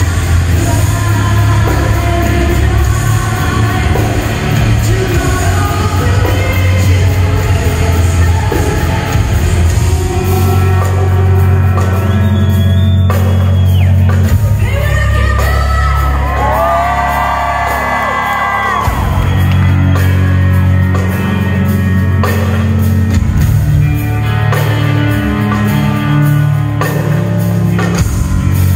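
Live heavy metal band playing loudly, with drums, bass and guitars under a female vocalist singing into a handheld mic, heard from the audience through the PA. About halfway through, a clean melodic vocal line stands out above the band.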